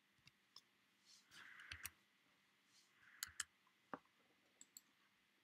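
Faint clicking on a computer: a few scattered sharp clicks over a quiet room, the loudest coming in close pairs.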